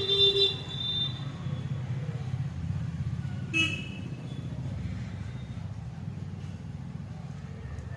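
Vehicle horn tooting briefly twice, once at the start and again about three and a half seconds in, over a steady low hum of running engines.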